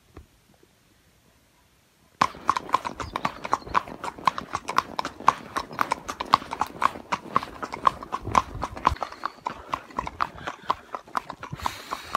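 Near silence for about two seconds, then a horse's hooves clip-clopping on a paved road, a steady run of sharp clacks several times a second.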